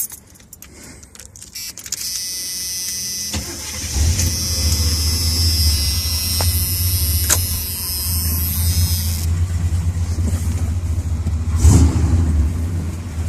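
Truck engine started: a couple of seconds of cranking, then the engine catches about four seconds in and settles into a steady idle. A high hiss over the start dies away about nine seconds in.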